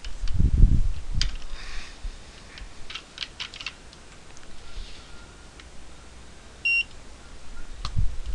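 A dental X-ray unit gives one short, steady exposure beep about two-thirds of the way through as it fires at the sensor. Before it come low handling thumps, the loudest near the start, and a quick run of light clicks; another thump comes near the end.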